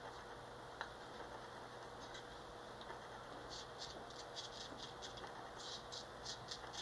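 Small metal spoon scraping and clicking against potassium alum crystals on a paper towel: a run of faint, quick scratchy clicks from about halfway through, after a single click near the start.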